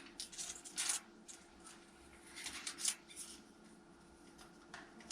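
Faint handling noise of parts being worked by hand: a few short rustles and scrapes, in a cluster near the start and another between two and three seconds in, over a faint steady hum.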